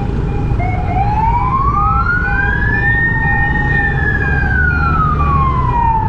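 An emergency vehicle's siren giving one slow wail, rising for about three seconds and then falling back down, over a steady low rumble of engines and traffic. A steady on-off beeping repeats about twice a second throughout.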